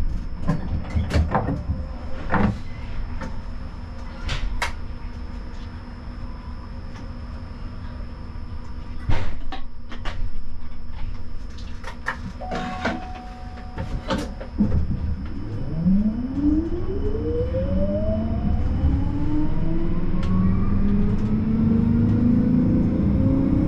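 Siemens Combino tram standing, with scattered clicks and knocks and a short steady beep about twelve seconds in. From about fifteen seconds its traction drive whines in rising tones as the tram pulls away and gathers speed.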